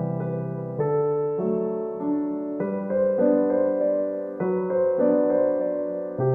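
Slow, gentle solo piano music, chords changing about once a second.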